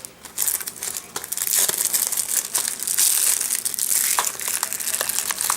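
Plastic shrink-wrap on a Blu-ray case crinkling as it is cut and peeled off, a dense crackle with many small sharp clicks, louder from about a second and a half in.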